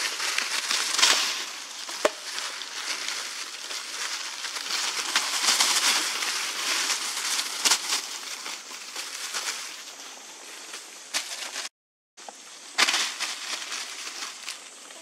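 Dry leaf litter crunching and rustling as young monkeys scramble and tussle over it, with several louder crackling scuffs. The sound cuts out for a moment about twelve seconds in.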